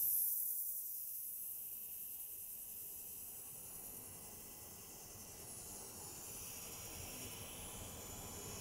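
TIG welding arc burning on stainless steel while a bead is run: a steady, faint, high-pitched hiss.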